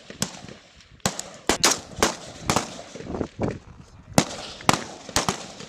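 Rifle gunfire: a string of single shots at irregular intervals, about two a second, some coming in quick pairs.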